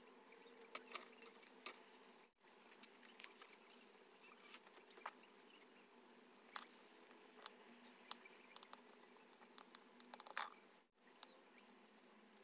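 Faint, scattered clicks and light scratching as a pointed tool tucks cotton fabric into the channel of a metal kiss-lock coin purse frame.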